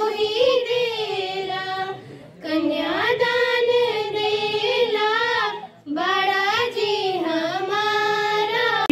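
Schoolgirls singing a folk song into a microphone, in three long, drawn-out phrases broken by short pauses about two and six seconds in.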